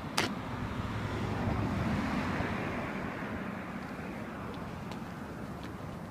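A car passing by, its noise swelling to a peak about two seconds in and then slowly fading, with a single sharp click just after the start.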